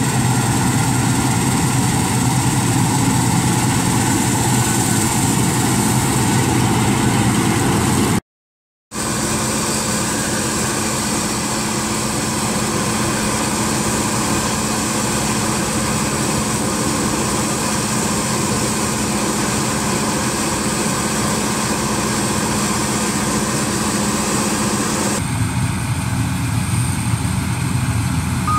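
Combine harvester engine and threshing machinery running steadily. The sound cuts out for about half a second roughly eight seconds in.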